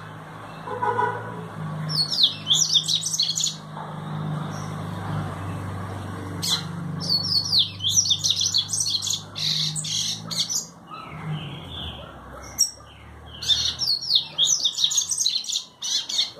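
Papa-capim (Sporophila seedeater) singing in three fast, twittering high-pitched bursts of a few seconds each, over a steady low hum that fades out about twelve seconds in.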